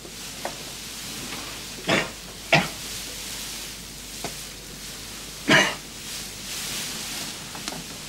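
Straw-filled sacking mattresses rustling as a man shifts and pushes his way out of the pile, over a steady hiss, with three short, sharp bursts of sound about two, two and a half and five and a half seconds in.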